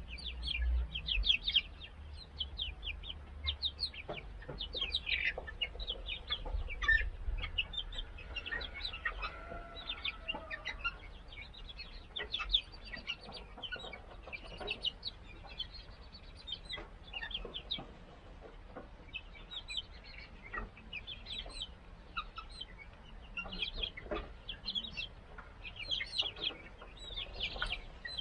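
A small flock of young chickens of mixed breeds peeping and chirping: many short, high-pitched peeps in quick runs, on and off throughout. A low rumble underlies the first several seconds.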